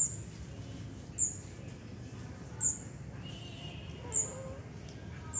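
A bird calling: a short, very high, slightly falling chirp, repeated about every second and a half, five times, over a steady low background hum.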